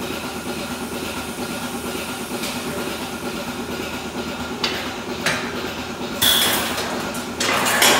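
Steel stalls and gates of a goat milking parlor clanking, a few sharp metal knocks in the second half, over a steady hum of parlor machinery.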